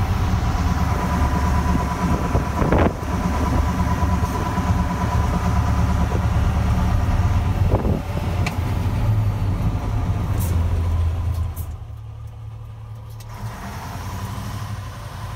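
Mankat 1A1 camper truck's engine running on the move, heard from inside the cab as a steady low drone with a couple of brief knocks. The drone falls away sharply about eleven and a half seconds in.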